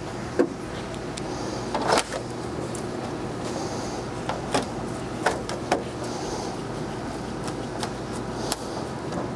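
Sheet-metal dryer panels knocking and clanking about six times as they are lifted and slid back into place, over a steady low machine hum.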